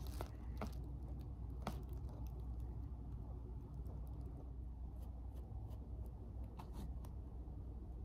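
Faint, soft dabbing and scraping of a tint brush spreading bleach paste over a wig's lace, with a few faint clicks, over a low steady room hum.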